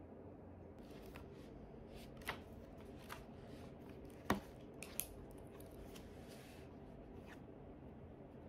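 A hardcover notebook being handled on a desk: pages turned and rustled, with a few light clicks and knocks, the sharpest about four seconds in.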